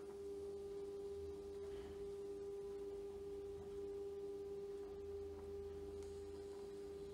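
Built-in thermal printer of a Biocare ECG-300G electrocardiograph running and feeding out a paper strip: its motor gives a steady whining tone that holds unchanged.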